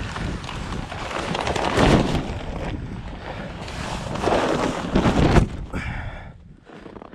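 Wind buffeting the microphone, gusting louder twice before easing off near the end.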